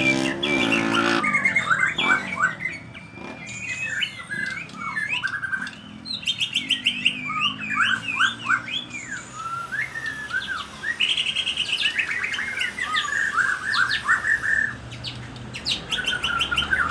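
White-rumped shama singing a varied song of clear whistles, quick trills and rising and falling phrases, broken by short pauses. A low droning sound cuts off about a second in.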